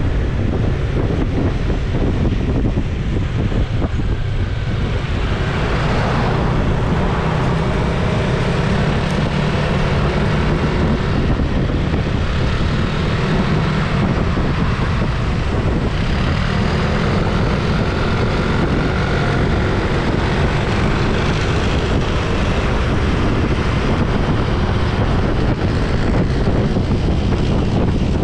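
Steady running noise of a vehicle travelling along a road, with wind buffeting the microphone.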